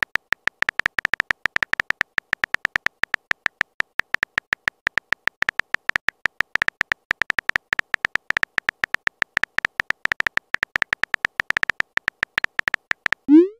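Rapid, irregular keyboard typing clicks from a texting app's sound effect, each a short high tick, as a message is typed out letter by letter.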